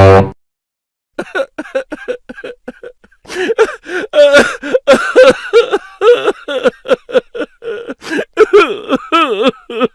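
Comic sound effect of a high-pitched voice giggling in rapid short bursts, several a second, starting about a second in. A brief loud pitched blip from the previous effect cuts off right at the start.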